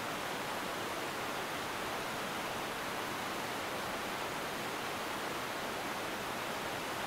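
A fast-running stream and waterfall rushing steadily in high water, an even hiss that does not change.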